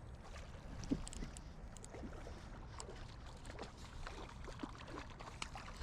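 Faint light water splashing and small irregular clicks as a hooked fish is played in on the line, over a steady low rumble.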